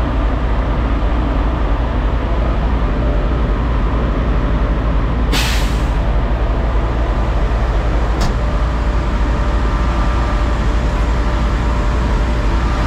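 Semi-truck's diesel engine idling steadily, with one short sharp hiss of air released from the truck's air-brake system about five seconds in, and a brief click a little later.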